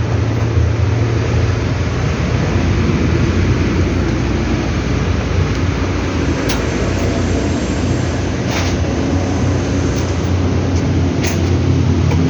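LG laundry washing machines running on a function test after servicing: a steady low rumble and hum, with a few faint knocks about six and a half, eight and a half and eleven seconds in.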